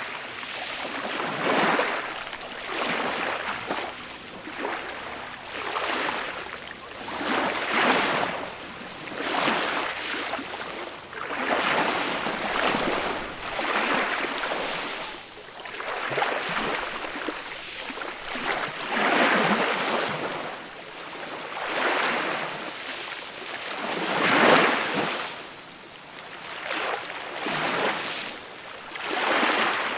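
Small, gentle sea waves breaking and washing up a beach shore, a swell of surf every two seconds or so, with one larger wave about three quarters of the way through.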